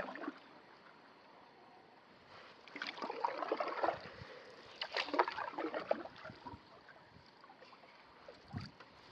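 Canoe paddle strokes in the water: swishing splashes and drips with small clicks, one stroke every couple of seconds, between quiet stretches.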